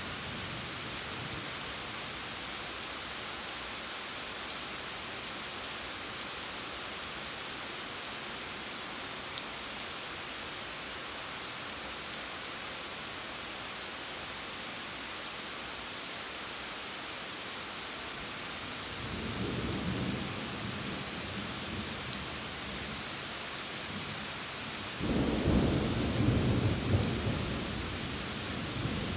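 Steady rain falling, with thunder rumbling twice: a softer roll about two-thirds of the way in and a louder, longer roll near the end.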